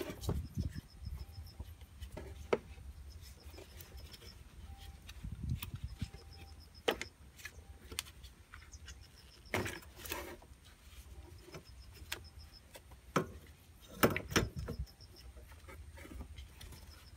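Scattered clicks, knocks and rubbing as gloved hands twist and pull a Honda Dio scooter's carburetor off its intake manifold and rubber hoses, with a few sharper knocks in the second half.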